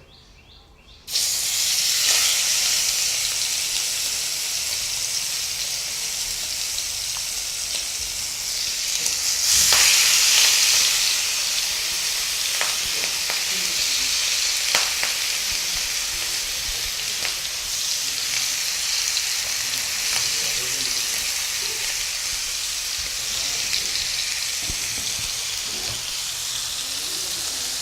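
Marinated chicken leg pieces sizzling in hot oil in a frying pan. The sizzle starts suddenly about a second in as the chicken goes into the oil, swells louder around ten seconds in, and carries on steadily with a few sharp pops.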